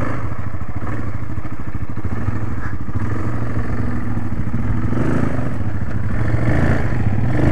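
Yamaha ATV engine running steadily at low speed while working over a rough, rocky trail, a little louder near the end.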